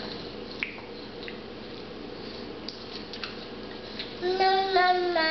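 A toddler's voice: a long, loud vocal sound held on one pitch near the end, after a few seconds of only faint small clicks.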